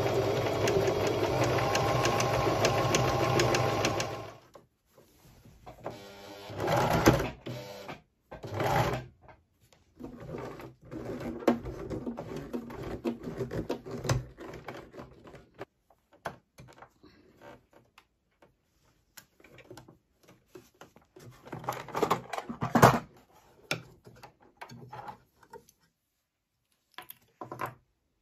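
Electric domestic sewing machine, a Singer Tradition, stitching at speed for about four seconds, a fast steady run of needle strokes, then stopping. After that come scattered clicks, knocks and rubbing as the jammed machine is worked by hand, its handwheel hard to turn because stretch fabric has been pulled down into the needle plate and thread is caught in the bobbin race.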